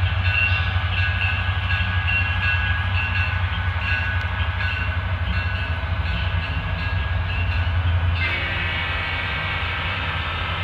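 Digital sound from a sound-equipped HO scale model diesel locomotive, with the deep engine rumble given by a Broadway Limited Rolling Thunder subwoofer system. A steady low rumble runs under higher tones that come and go, and about eight seconds in the sound turns hissier.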